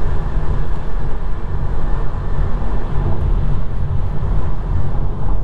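Steady road and tyre noise inside a Tesla Model 3's cabin at freeway speed: an even low rumble with a fainter hiss above it.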